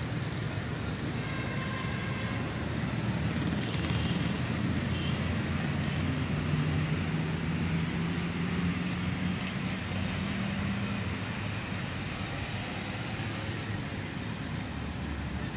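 Road traffic: a steady rush of passing vehicles, with one engine's low hum swelling and rising slightly in the middle before fading.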